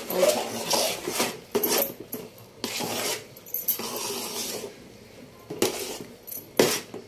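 Flat steel spoon scraping and stirring stiff, crumbly rice-flour (bhajani) dough around a stainless steel pot in rasping strokes, with a few sharp metallic clinks near the end.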